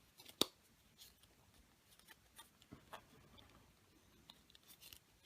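Faint handling of a chocolate surprise egg's plastic toy capsule being opened: one sharp click about half a second in, then scattered light ticks and rustles.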